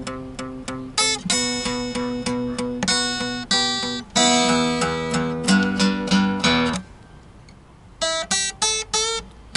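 Acoustic guitar playing an instrumental blues break: single picked notes over a repeating bass line, breaking off for about a second near the end before picking up again.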